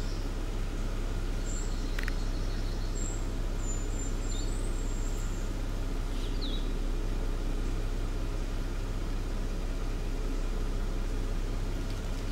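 Steady low hum with faint, short, high chirps of small birds now and then and a single click about two seconds in; the barred owl does not call.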